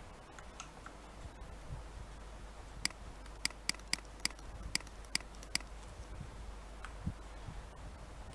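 A quick run of about eight sharp clicks from computer controls being worked, a few seconds in, over a faint steady low hum.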